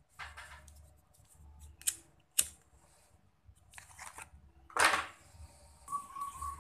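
A cat eating from a metal bowl on a hard floor: scattered small clicks and chewing sounds, with a short rustling burst of noise about five seconds in.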